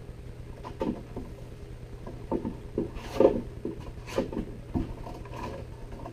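Long kangaroo-leather whip strands being handled and sorted: irregular soft knocks, slaps and rustles as the strands are pulled and swung against each other and the bench, loudest about three seconds in.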